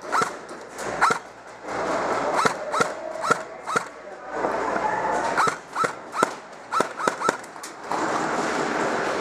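Airsoft guns firing single shots: about a dozen sharp pops at irregular spacing, some in quick runs of two or three, with rustling movement noise between them.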